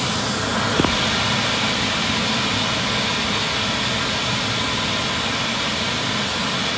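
Steady, loud mechanical roar of engine-like noise, with one brief sharp knock about a second in.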